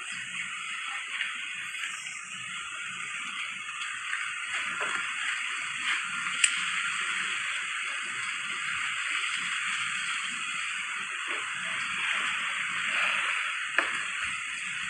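Steady rushing noise, with a single sharp click about six and a half seconds in.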